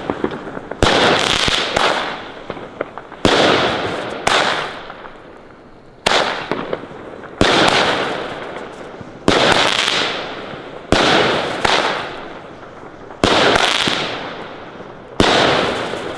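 Pyrotrade Zombie 1 fireworks battery firing shot after shot, about eleven in all, one every one to two seconds. Each shot is a sharp bang whose burst fades away over a second or two.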